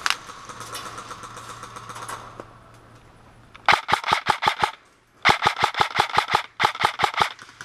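Airsoft M4 rifle firing three full-auto bursts of rapid sharp cracks, about eleven shots a second, beginning about three and a half seconds in. The first two bursts last about a second each and the last is shorter.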